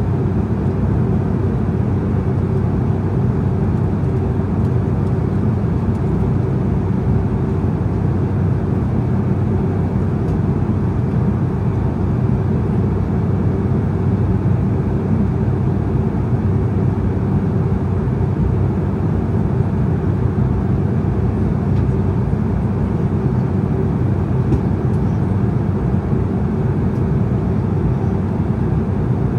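Cabin noise of an Embraer E190 in flight: the steady drone of its turbofan engines and rushing air, deep and even, with a couple of constant hums underneath.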